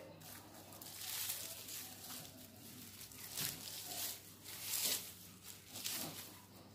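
Dry fibre strands rustling and crinkling in repeated short bursts as hands twist them together into a cord.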